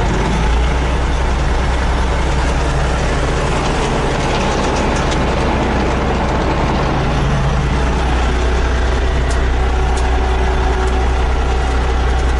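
A Kharkiv T-150 tractor's diesel engine runs steadily, heard from inside the cab with a strong low hum, as the tractor moves off slowly.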